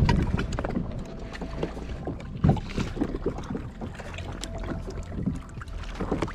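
Irregular knocks and clatter of gear being handled on a fishing kayak, with wind on the microphone; one sharp, louder knock comes about two and a half seconds in.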